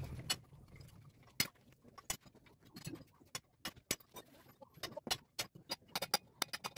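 Sharp, irregular metal clicks and taps from work on an opened manual transmission gearbox, with a hammer tapping at its gear. The clicks are scattered at first and come faster in the last second or two.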